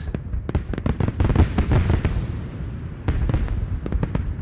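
Film sound effect of firework-like bursts: a dense run of irregular crackles and pops over a deep, steady rumble, loudest about a second and a half in.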